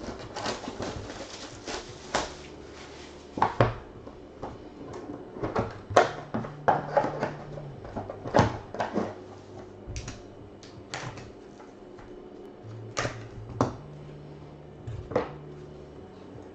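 Plastic shrink wrap crinkling as it is peeled off a sealed cardboard trading-card box. It is followed by scattered sharp taps, knocks and scrapes as the box lid and the small inner cardboard boxes are lifted out and set down.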